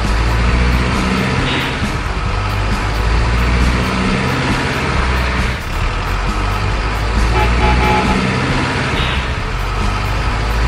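Truck engine sound effect running steadily, a loud, even low drone with no revving or gear changes, accompanying a toy RC dump truck crawling over dirt.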